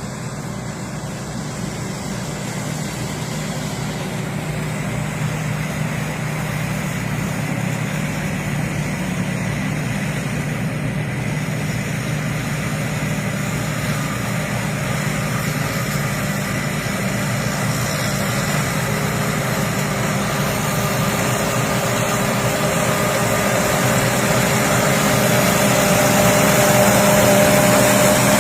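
Rice combine harvester from a Thai workshop running steadily, its engine and threshing noise growing gradually louder, with a higher whine joining in the last third.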